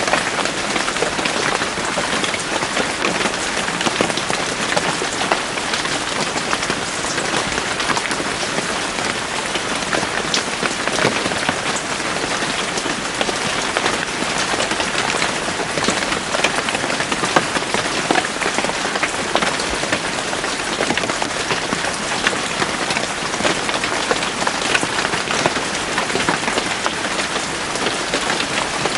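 Steady rain falling on leaves and the ground, a dense even hiss with many individual drops pattering through it.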